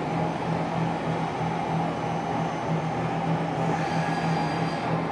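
Steady drone of running machinery: a low hum with a noisy wash over it. A faint high whine joins for about a second near the end.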